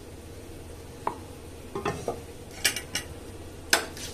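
Wooden rolling pin knocking and clicking against a wooden rolling board as a round of dough is rolled out and the pin is lifted away: a handful of sharp knocks from about a second in, with a few brighter, ringing clinks near the end.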